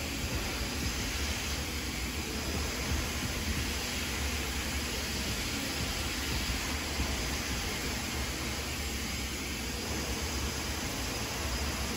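Handheld hair dryer blowing steadily: a continuous rushing of air over a low motor hum.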